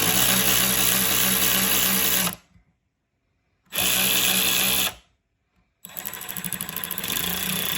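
Mac Tools 12 V cordless ratchet's motor running with no load in three trigger pulls: a run of about two and a half seconds, a short one of about a second, then one that starts softly and builds as the variable-speed trigger is squeezed further.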